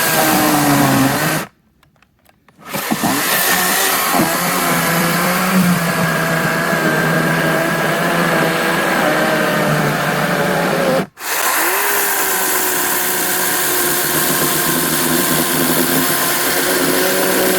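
Teccpo 40-volt cordless electric chainsaw cutting into a thick log, its motor whine sagging in pitch as it works. It stops for about a second near the start and again very briefly about eleven seconds in, spinning back up each time.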